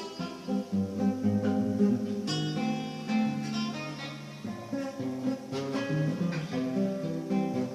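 Acoustic guitar playing an instrumental tune, chords strummed and plucked with the notes changing steadily throughout.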